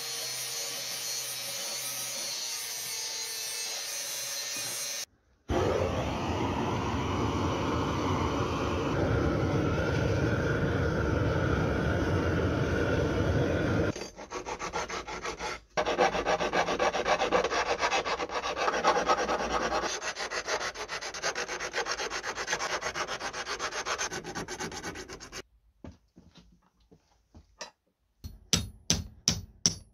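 An angle grinder grinding a spring-steel rod for about five seconds, then long stretches of steel being filed and rubbed by hand. After a short pause, a quick run of sharp knocks near the end.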